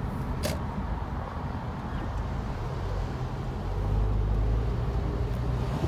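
Car driving, heard from inside the cabin: a steady low rumble of engine and road noise that grows somewhat louder about four seconds in. A faint click comes about half a second in.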